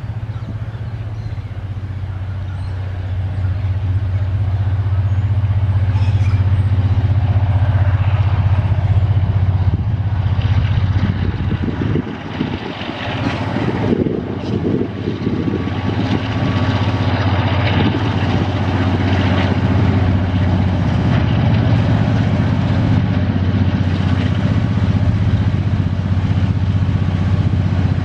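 Tasrail diesel-electric freight locomotives drawing near, their engines a steady low drone that grows louder. A heavier, rougher rumble joins about halfway through as the train comes close.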